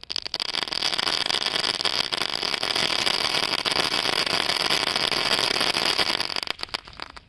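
Firecrackers burning together in a hole in the ground along with an anar fountain: a dense, continuous hissing and crackling full of rapid pops. It starts suddenly, then thins to a few separate pops near the end and dies away.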